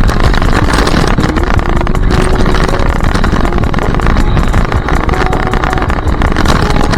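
RC car running, with dense, loud motor and ground noise picked up by the camera riding with it.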